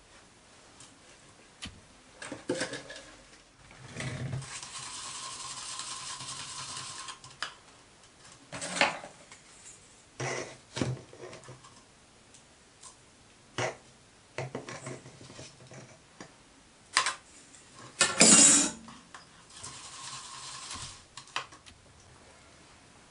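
Water poured from a plastic bottle into a plastic pot for a few seconds. Then a metal rod stirs and taps in the pot as Easy-flo flux powder is mixed into a paste, with scattered knocks and clatter of small copper parts being handled on a wooden bench. The loudest clatter comes late on.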